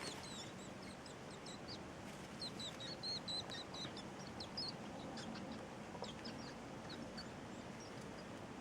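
Five-day-old baby rats squeaking: many short, high-pitched squeaks, thickest in a rapid run in the first half and sparser toward the end.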